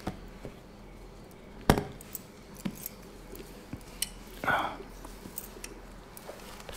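Handling sounds as a gift box is opened and its contents lifted out: scattered light clicks and clinks, one sharp knock about 1.7 s in, and a brief rustle about 4.5 s in.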